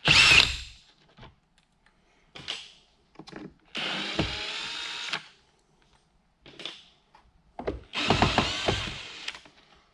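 Cordless drill-driver backing screws out of a plastic HVAC heater box housing. It comes in short blips and two longer runs of about a second and a half each, one near the middle and one near the end.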